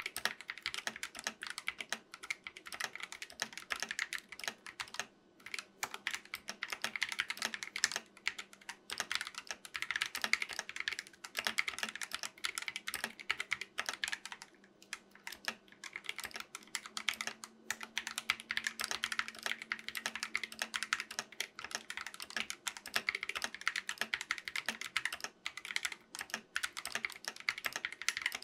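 Fast, continuous typing on a GK61 mechanical keyboard fitted with spray-lubed Gateron optical yellow linear switches: a steady stream of key clacks with no pauses.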